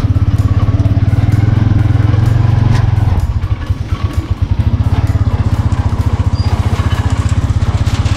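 Motorcycle engine of a motorcycle-and-sidecar tricycle running under way, a fast steady thrum. About three seconds in it eases off and runs on more lightly.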